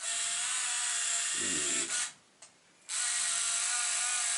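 Konica Z-Up 115E zoom compact camera's motorised zoom lens running twice, each run a steady, high electric whine of just under two seconds with a short pause between. The zoom motor is quite noisy.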